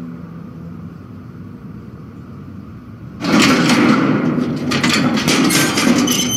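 A door being unlocked and opened: about three seconds in, a sudden run of rattling, clanking and scraping with many sharp knocks, after a quiet low background.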